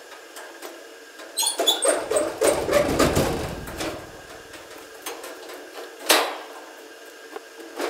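Rustling and clatter of parts and packaging being handled, busiest from about one and a half to four seconds in, with a sharp knock about six seconds in.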